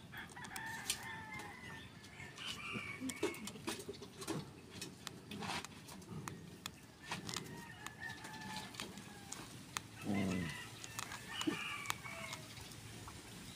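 Chickens clucking faintly, with a louder call about ten seconds in, over scattered small clicks of a steel needle scratching at an eggshell.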